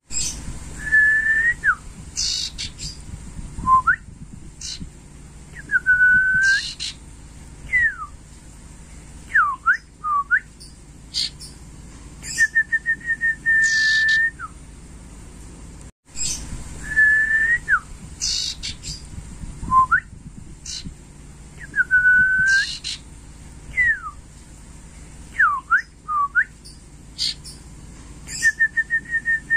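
Young male common iora (sirtu) singing clear whistled notes, some held level and some sliding up or down, with a quick run of short repeated notes and higher chirps mixed in. The same phrase sequence starts over about halfway through after an abrupt cut.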